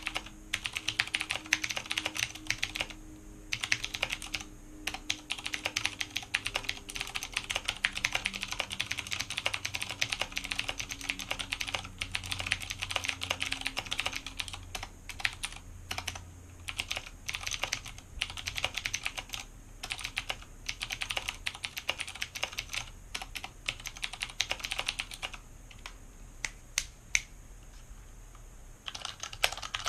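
Fast typing on a mechanical keyboard: a dense, uneven run of key clacks with a few brief pauses. Near the end the typing thins to a handful of single keystrokes for about three seconds, then resumes.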